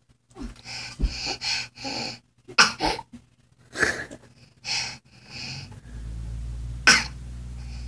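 A young girl's short, breathy coughs and hiccups in a quick series, with one sharper burst about seven seconds in.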